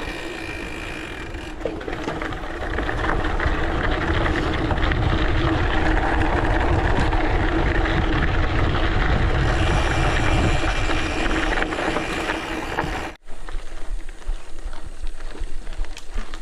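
Mountain bike rolling fast downhill on a gravel forest road: knobby tyres on gravel under heavy wind rumble on the microphone, with a steady hum through most of it. The sound cuts out for an instant about 13 seconds in, then goes on a little thinner.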